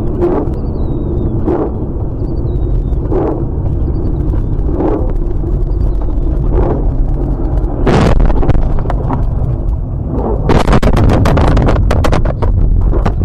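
Car crash picked up by a dashcam's microphone: a loud continuous rumble with a sharp knock about every second and a half, a heavy impact about eight seconds in, then a rapid clatter of crashing and cracking from about ten and a half seconds in.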